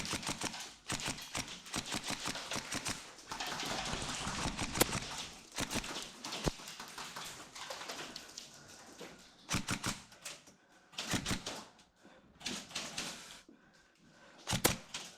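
Airsoft guns firing rapid bursts of sharp clacking shots, a long run at the start and several shorter bursts over the last few seconds.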